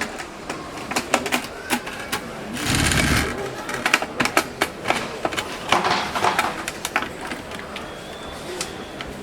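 Smart door lock parts being handled and fitted on a door: a run of small sharp clicks and knocks, with a short louder noisy burst about three seconds in and another near six seconds.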